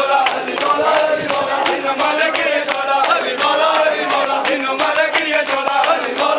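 A crowd of men chanting a noha together, with many sharp slaps of hands beating on bare chests (matam) over the singing.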